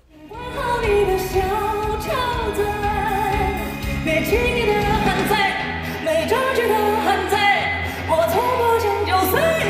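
A male singer's high voice singing a pop melody over backing music, fading in over the first second.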